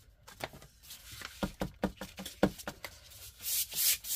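A series of light knocks and clicks as a paintbrush is loaded with acrylic paint, then, about three and a half seconds in, a flat bristle paintbrush starts scrubbing acrylic paint across paper.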